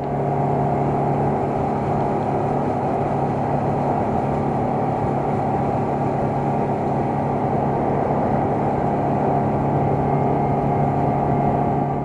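Motorboat engine running at a steady speed, a constant engine drone over rushing noise that cuts off suddenly at the end.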